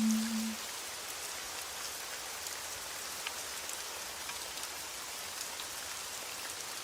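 Steady rain falling: an even hiss with faint, scattered drop ticks. A low sung note ends about half a second in.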